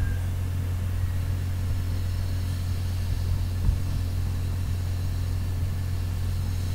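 Steady low hum in the recording's background, with a single soft thump about halfway through.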